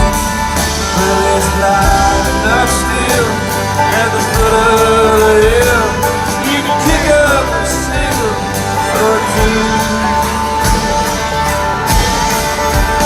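Live country-rock band playing an instrumental passage, with a steady drumbeat, guitars and gliding lead melody lines.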